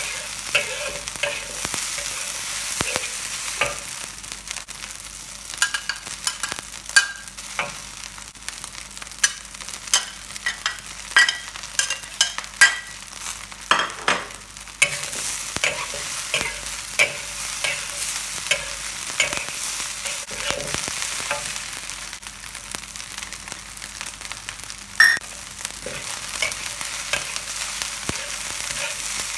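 Rice sizzling as it stir-fries in a wok, with a metal spatula scraping and clinking against the pan as it tosses the rice. Sharp clanks come now and then, the loudest about 25 seconds in.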